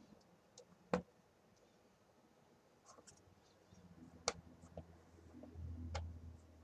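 A tube of soft clay being handled on a wooden workbench: a sharp knock about a second in, then a low rumble as the tube is rolled on its side across the board, with a few light knocks along the way.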